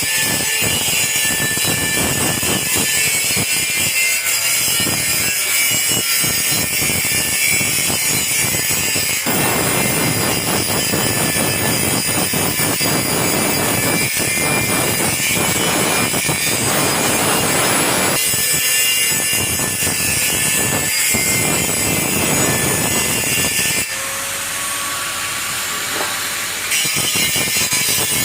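Angle grinder grinding rust off a metal flagpole, a continuous high-pitched whine with a rough, shifting grinding noise as the tool is pressed to the pole. Near the end it eases to a lighter, steadier whine for a few seconds before biting into the metal again.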